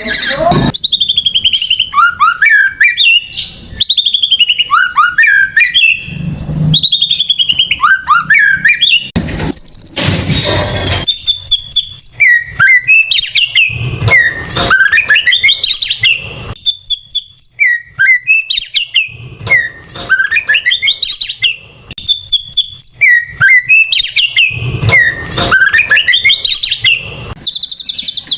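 White-rumped shama (murai batu) singing loud, varied phrases of swooping whistles and quick trills, with short pauses between the phrases. It is a pancingan song, used to provoke a caged shama into singing.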